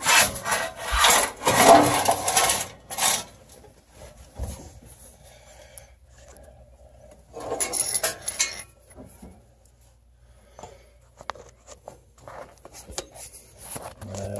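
Handling noise inside the pellet stove's compartment: rubbing and scraping against sheet metal and wiring, loudest during the first three seconds and again around eight seconds in, with scattered small clicks between.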